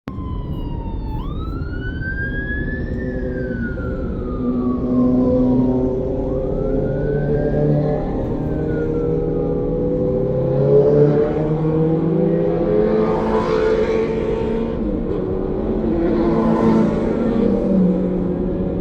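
Vehicle siren wailing in slow rises and falls, two full sweeps, then fading out after about ten seconds. Engines and traffic hum underneath throughout, with two louder rushes of passing vehicles later on.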